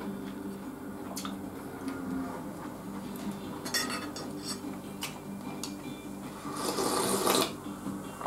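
Eating at a table: a few light clicks of chopsticks and tableware, then a loud slurp of about a second from a bowl of miso soup near the end.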